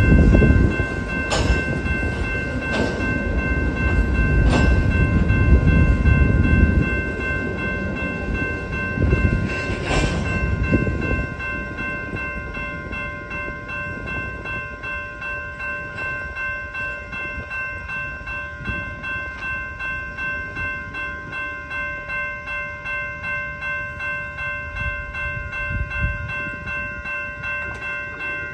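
A freight train of open hopper cars rolls past a grade crossing, a heavy wheel rumble with a few sharp clanks, until the last car clears about eleven seconds in. The crossing's warning bell rings throughout, and once the train is gone it goes on alone as a steady pulsing ring.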